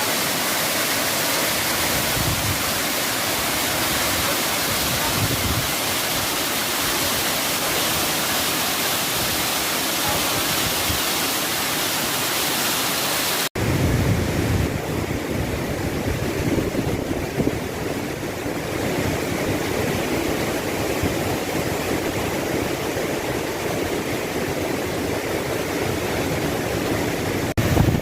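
Waterfall, a steady rush of falling water. About halfway through the sound cuts abruptly to a duller, lower rush of water with less hiss.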